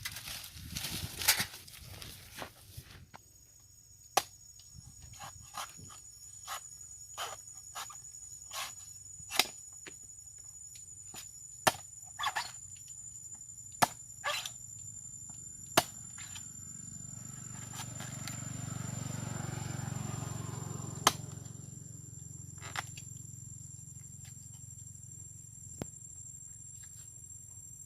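Irregular sharp clicks and knocks, roughly one every second or two, over a steady high-pitched whine that starts about three seconds in; a low hum swells and fades in the second half.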